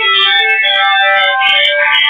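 Music led by a keyboard, with held notes changing pitch every fraction of a second and light percussive ticks.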